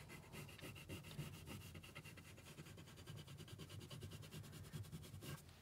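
A crayon rubbing on paper in quick, even back-and-forth strokes as an area is coloured in; faint.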